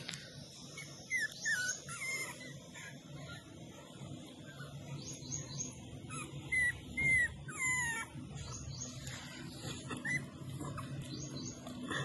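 Beagle puppies whining and yelping in short high-pitched squeaks that bend downward, coming in a few bursts during play.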